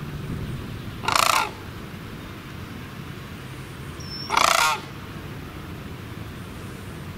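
Sandhill crane calling: two loud rattling calls of about half a second each, about three seconds apart.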